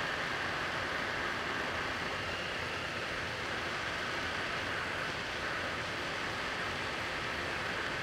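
Steady hiss of air from an electric blower at a soldering bench, even and unbroken throughout.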